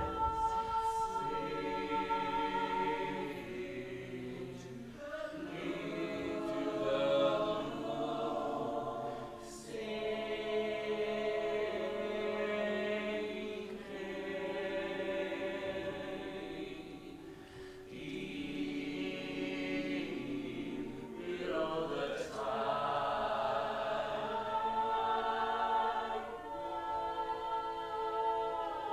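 Choral singing: several voices holding sustained chords that shift to new harmonies every few seconds.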